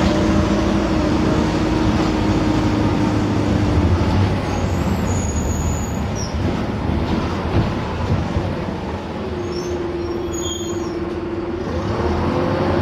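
Optare Solo bus with a Mercedes diesel engine and Allison automatic gearbox running along, its drivetrain giving a steady whine that drops away about four seconds in and comes back rising near the end. Brief high-pitched whistles or squeals sound twice mid-way.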